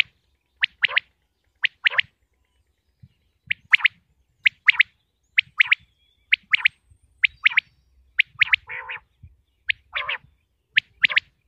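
Common quail calling: short, sharp notes grouped in quick phrases of two or three, repeating about once a second. A few lower, rougher calls come in about two-thirds of the way through.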